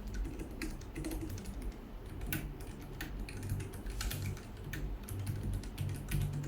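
Typing on a Keychron K7 Bluetooth mechanical keyboard with Mint keys: a steady run of irregular key clicks.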